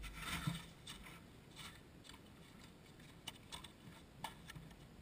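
A few faint footsteps crunching in snow in the first half second. Then it is mostly quiet, with a handful of soft, sharp clicks in the second half.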